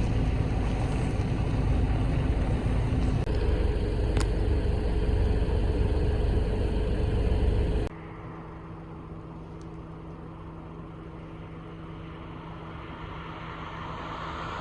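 Steady low rumble of a moving vehicle, which drops abruptly to a quieter steady hum about eight seconds in and swells again near the end.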